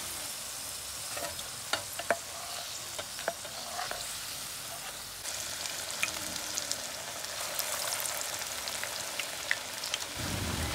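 Pakoras deep-frying in hot oil in an aluminium kadhai: a steady sizzle with scattered sharp pops and crackles, growing a little louder about five seconds in.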